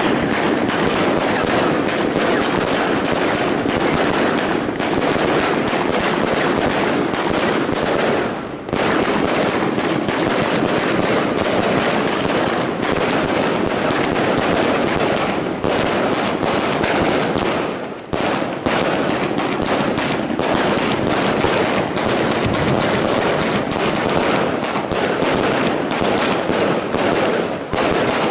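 A 100-shot 30 mm compound firework cake firing a dense, rapid run of shots, the launches and bursts following one another almost like machine-gun fire, with two brief lulls about a third and two-thirds of the way through.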